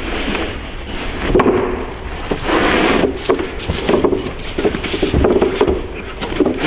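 Wooden shelf panels knocking and scraping against each other and the vehicle as they are pushed into the back of an SUV, with many short knocks and a longer scrape about two and a half seconds in.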